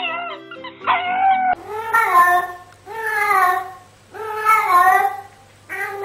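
A dog's short howling calls over background music, then from about a second and a half in a cat's long drawn-out meows, four of them about a second apart, each rising and falling in pitch.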